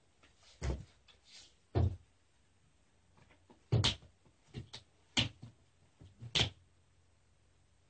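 A kitten batting at a rubber flip-flop and dragging it across the floor and against a wooden door: about six short knocks and taps, irregularly spaced.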